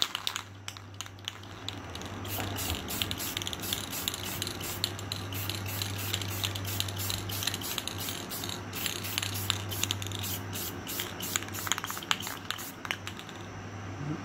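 Rust-Oleum acrylic lacquer aerosol can spraying in repeated short hissing bursts, laying light coats of paint, with rattling at the start as the can is shaken. A steady low hum runs underneath.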